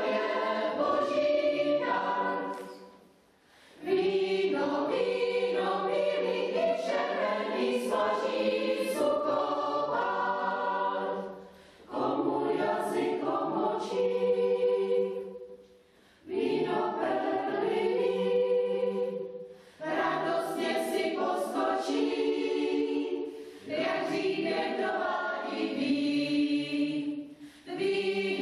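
Mixed chamber choir of women's and men's voices singing in sustained phrases, with short breaks between them, the longest about three seconds in.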